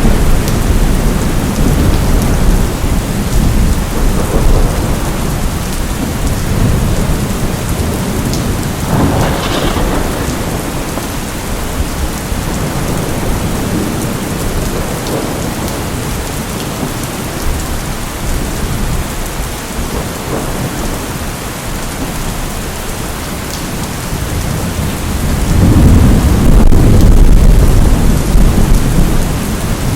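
Steady rain falling, with thunder rumbling. A short crack of thunder comes about a third of the way in, and a loud low roll of thunder swells near the end and then fades.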